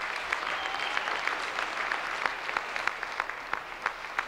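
Audience applauding: many hands clapping steadily, thinning a little near the end.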